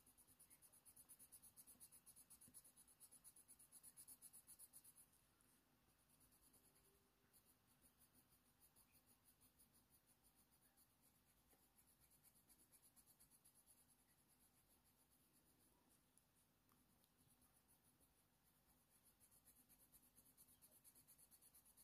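Very faint scratching of a Faber-Castell Polychromos coloured pencil shading on hot-pressed watercolour paper, in quick, even back-and-forth strokes; a little louder for the first few seconds and again near the end.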